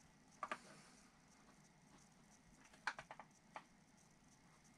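Near silence, broken by a few faint, short clicks and taps of small objects being handled: a pair about half a second in, a quick cluster near three seconds and a single tap shortly after.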